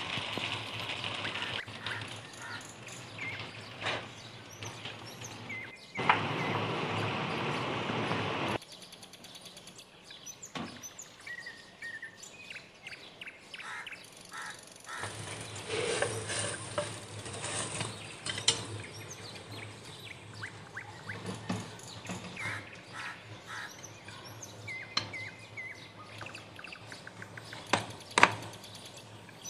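An egg-and-vegetable omelette sizzling in ghee in a nonstick frying pan, loudest for a couple of seconds starting about six seconds in. Birds chirp in the background, and there are a few sharp clicks.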